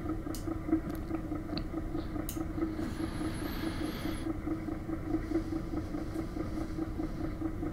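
Colchester lathe running with a steady low hum that pulses evenly while a carbide tool faces a 4WD suspension riser block, with a few light clicks early in the cut and a faint high whine for about a second midway.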